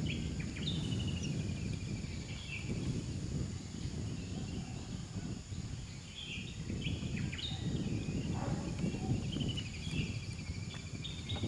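Small birds chirping and giving short rapid trills, over a low rumbling noise that swells and fades.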